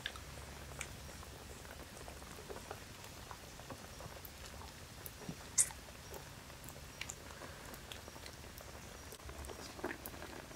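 Pot boiling over a wood fire: scattered small pops and crackles over a low steady hum, with one sharper crack about five and a half seconds in.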